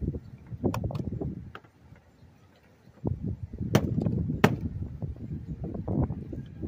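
Clattering and knocking of an air-conditioner casing being handled and worked apart during a teardown, with a few sharp clacks. It goes quiet for about a second midway, then resumes.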